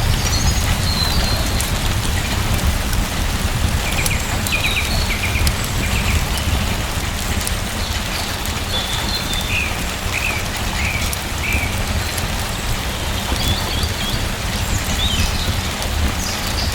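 Steady rain with a low rumble underneath, and short, high bird chirps coming and going over it, a run of them in the middle.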